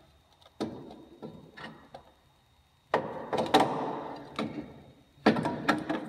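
Metal knocks and scraping as a Honda Element's starter motor is worked free and pulled out from under the engine: a sharp knock about half a second in, a longer stretch of scraping and knocks in the middle, and a few more knocks near the end.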